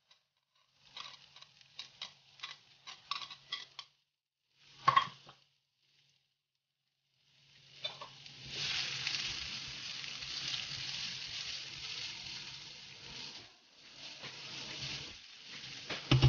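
Chopped onion scraped off a plate with a knife into a frying pan, the pieces tapping down, then one loud clatter about five seconds in. From about eight seconds the onion sizzles steadily in hot oil with cumin seeds. Near the end a silicone spatula stirs it.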